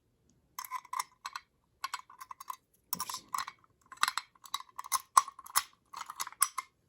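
Metal clicking and jingling as an FCI key works the lock of an FCI MS6 fire alarm pull station to reset it: a quick, irregular run of clinks that starts about half a second in.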